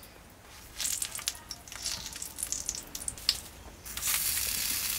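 Banana-leaf parcels of hilsa set down on a hot, oiled clay pan, the oil sizzling and crackling under them. About four seconds in, a louder, steady sizzle starts as a second parcel is pressed onto the pan.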